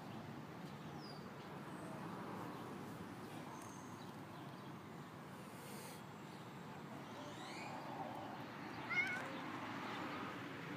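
A tortoiseshell cat gives one short, high meow about nine seconds in, over faint steady background noise.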